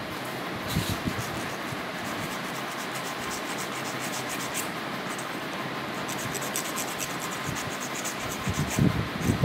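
Electric pet nail grinder running steadily, rasping in short repeated strokes as it files a dog's claws.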